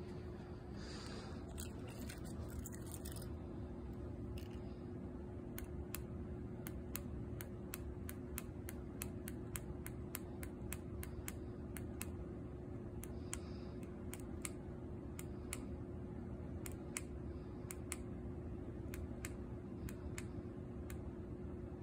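Small key-fob remote's buttons clicking in a quick irregular series, roughly two presses a second, starting a few seconds in, over a steady low hum.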